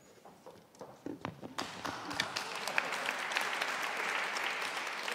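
Audience applause: a few scattered claps at first, then the whole audience joins in about a second and a half in and keeps clapping steadily.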